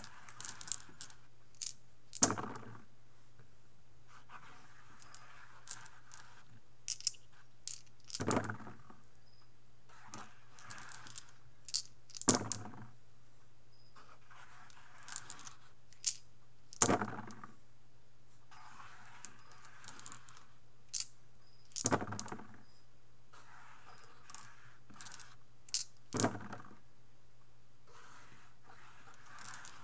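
Five plastic dice repeatedly gathered up by hand and rolled into a felt-lined dice roll box made of cardboard, foam and felt panels, about one roll every four to five seconds: softer clicking and rattling as the dice are collected, then a sharp clatter as they land and tumble. A steady low hum runs underneath.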